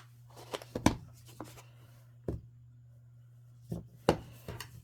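Small plastic pieces and capsule parts being handled, giving about eight separate clicks and taps at irregular intervals.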